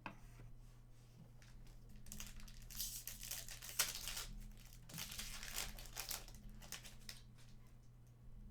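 Trading-card pack wrapper crinkling and tearing as a pack is opened, in two bursts of a couple of seconds each, about two and five seconds in.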